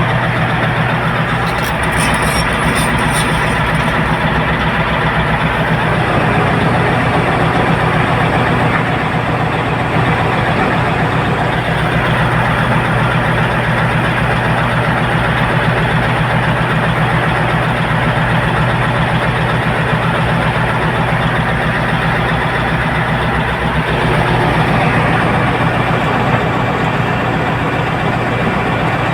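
Heavy diesel engine of construction machinery running steadily, with a short run of light clicks about two seconds in.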